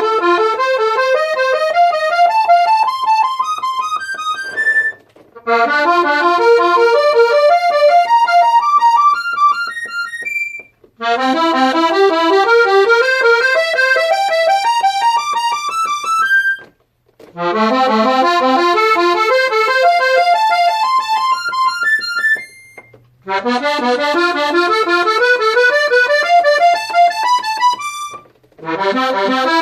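Melodija Menges Slovenka III button box accordion, a three-row diatonic in B-flat, F and C, sounded one button at a time: five rising runs of single reed notes, each climbing step by step from low to high over about five seconds, with a short break between runs.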